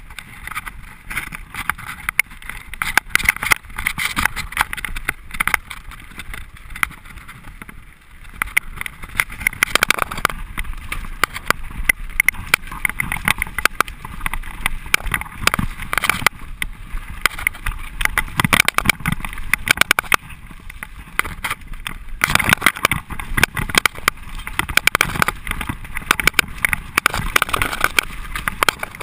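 Mountain bike running fast down a rough dirt trail: tyres on dirt and rocks, with frame and chain rattling and dense irregular knocks from the bumps, louder over the rougher stretches.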